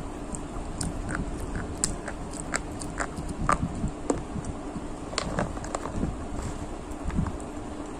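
Close-miked biting and chewing of crunchy brown stick snacks: a run of sharp, irregular crunches and crackles, over a low steady hum.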